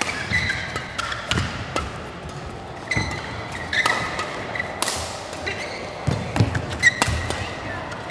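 Badminton rackets striking a shuttlecock in a fast doubles defence drill: sharp, irregular hits about once a second, with short squeaks of shoes on the court mat between them.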